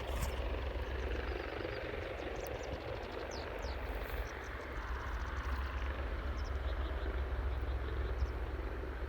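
Distant helicopter running on the ground: a steady rumble of engine and rotor as it begins to taxi.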